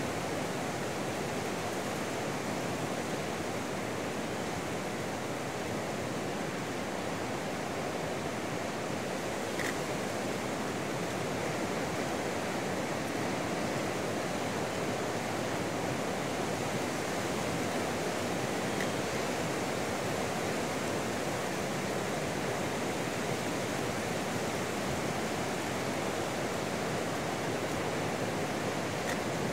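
Heavy surf from a rough, storm-driven sea breaking along the shore: a steady, unbroken rush of noise.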